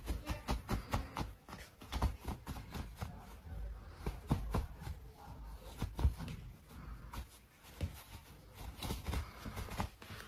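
Quiet, irregular rustling with soft taps and low thuds in a small room.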